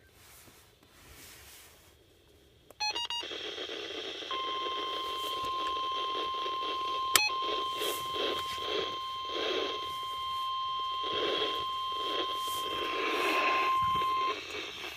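NOAA Weather Radio warning alarm tone: a single steady tone held for about ten seconds over fluctuating radio static, with a sharp click about seven seconds in. A quick run of beeps and a burst of static come just before it, about three seconds in.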